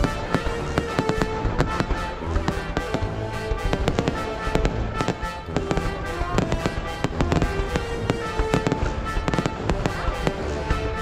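Fireworks going off in a dense, continuous string of sharp bangs and crackles, several a second, with music playing underneath.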